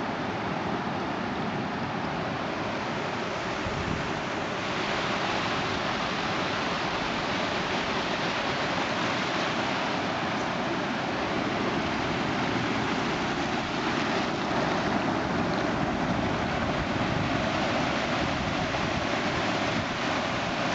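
Ocean surf washing in at the water's edge: a steady rushing hiss of waves and foam, a little louder from about four seconds in.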